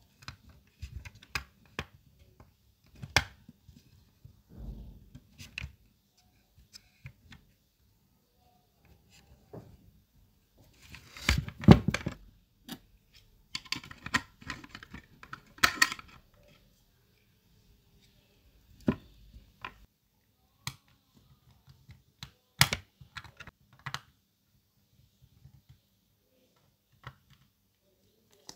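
Small plastic scale-model car parts being handled and pressed into place: scattered clicks and taps of clear plastic glazing against the painted body, with a busier stretch of clicking and rubbing around the middle.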